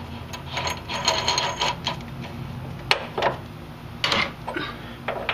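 Metal-on-metal clinking and scraping as the pitman arm nut is spun onto the pitman shaft by hand and a steel socket is fitted over it. There are a few sharp clinks with a short ring about three and four seconds in.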